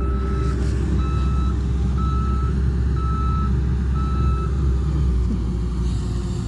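Excavator's travel alarm beeping about once a second, five half-second beeps that stop about four and a half seconds in, over the steady low rumble of its running engine.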